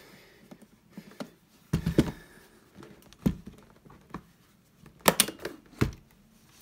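Handling noises of a hard leather briefcase on a workbench: several sharp knocks and thumps as the case is moved and its lid opened, the loudest about two seconds in and again about five seconds in, with soft cloth rubbing between them.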